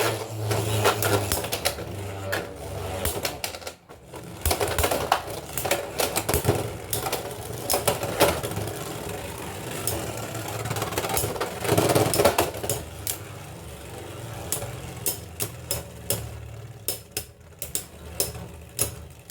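Beyblade X spinning tops whirring and clashing in a plastic stadium: a steady low spinning hum under rapid, irregular clacks of plastic and metal hitting, with a short lull about four seconds in before the clattering picks up again.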